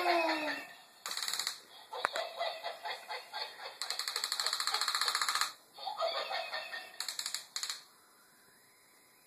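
Plush toy monkey's built-in electronic monkey sound: rapid chattering through a small speaker in several bursts, the longest about a second and a half. It stops shortly before the end.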